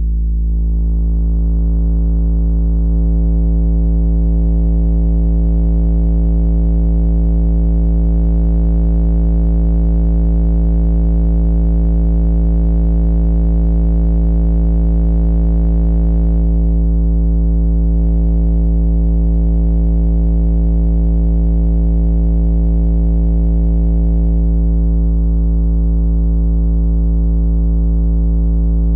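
A 55 Hz sine-wave test tone played through a valve (vacuum-tube) amplifier driven into clipping: a low steady hum that turns buzzy as overtones grow over the first few seconds, the sound of the valves' clipping distortion. The buzz thins slightly twice later on.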